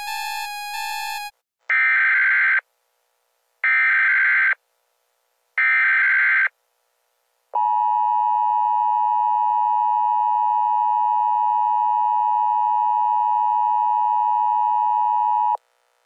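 A pulsing electronic alert tone ends about a second in. Then come three short buzzing data bursts about two seconds apart, the digital SAME header of an Emergency Alert System earthquake alert. They are followed by the steady two-tone EAS attention signal, held for about eight seconds before it cuts off.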